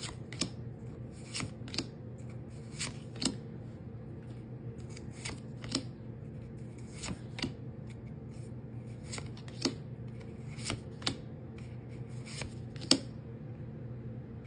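Pokémon trading cards being slid and flicked one past another by hand while a booster pack's cards are gone through: short, irregular papery swishes and snaps, about one or two a second, over a steady low hum.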